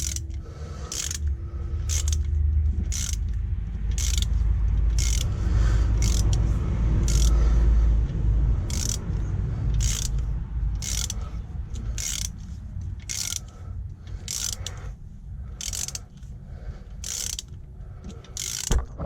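Ratchet wrench clicking about once a second, each click a backstroke, as a bolt is wound down into an oil-filled bolt hole, with low handling rumble underneath.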